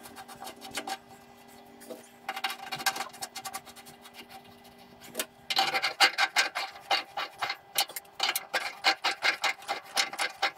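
Hand tool rasping and scraping on a metal pipe fitting: quick, irregular strokes that start about halfway through and go on to the end, over a faint steady hum in the first half.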